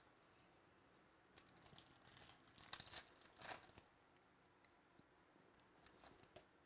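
Foil wrapper of a trading-card pack being torn open and crinkled by hand, faint, with a cluster of sharp rips between about one and a half and four seconds in and a little more crinkling near the end.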